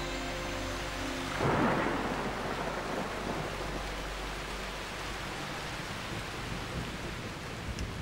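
A monsoon thunderstorm: a sudden thunderclap about a second and a half in that dies away, then rain falling steadily.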